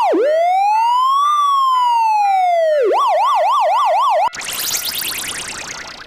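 Electronic emergency-vehicle siren sound effect: a fast yelp, then one slow wail rising and falling, then the fast yelp again, cut off suddenly a little over four seconds in by a loud electronic sound effect that fades away. A railroad crossing bell dings steadily and faintly underneath.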